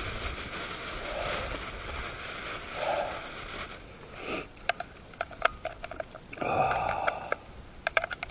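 Sharp metallic clicks of jacketed .303 cartridges being handled and pressed one at a time into an Enfield rifle magazine, coming in a quick run from about halfway through. Before that there is a steady hiss with a few breathy sounds.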